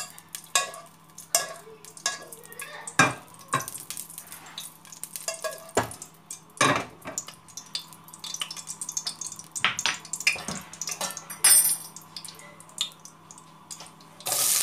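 Spatula scraping and tapping around a nonstick pan as ghee melts in it, with scattered clicks and a few louder knocks. Just before the end the pan breaks into a loud frying sizzle.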